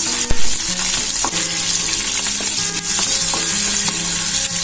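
Cumin seeds, green chillies and curry leaves sizzling in hot oil in a nonstick kadai, stirred with a spatula that knocks and scrapes against the pan a few times.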